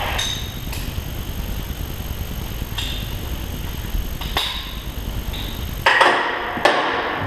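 Scattered metal clicks and knocks of parts and hand tools as a truck's fan pulley and its mounting bolts are fitted, over a steady low hum. A louder, denser clatter comes about six seconds in.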